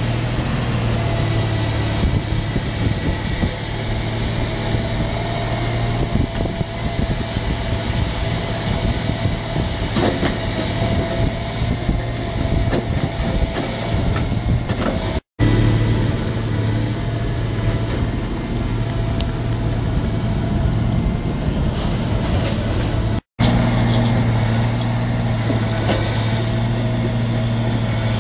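Diesel engine of an Atlas 1704 HD tracked excavator running steadily, with scattered knocks and clatter of brick rubble as its grab works over a skip. The sound breaks off briefly twice.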